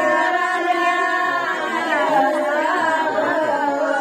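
A group of women singing a devotional song together, unaccompanied, with long held notes.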